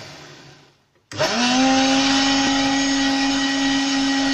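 Countertop blender motor blending milk and oil into eggless mayonnaise: it winds down and stops at the start, then about a second in starts again with a rising whine and runs steadily.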